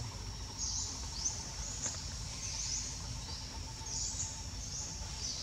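Forest ambience: a high chirping call repeating about every half second over a steady low rumble.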